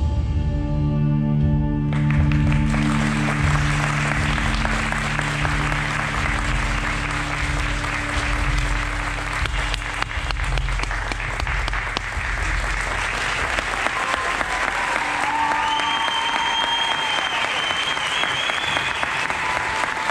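A band's final chord is held for about two seconds and fades out as the audience breaks into applause, which continues steadily. Someone whistles near the end.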